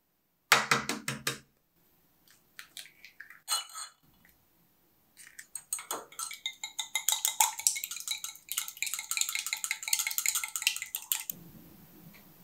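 An egg tapped and cracked open, a few sharp knocks, then a small wire whisk beating the egg in a glass measuring jug: fast, even metal-on-glass clicking for about six seconds that stops just before the end.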